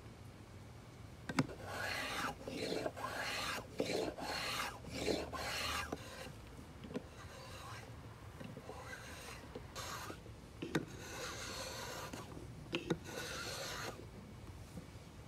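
Small wooden chamfering plane cutting a chamfer along the edge of a wooden block: a run of about a dozen short shaving strokes, each under a second, softer in the middle, with a few sharp clicks among them.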